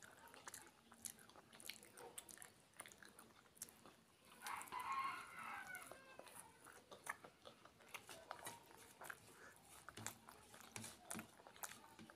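Close-miked mouth sounds of eating kochuri with chickpea and potato curry: chewing, biting and small wet clicks and smacks. About four seconds in there is a louder stretch of a second or two with a pitched, squeaky edge.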